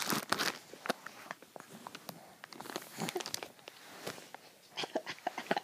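Soft rustling with scattered small clicks and taps, growing into a denser run of clicks near the end.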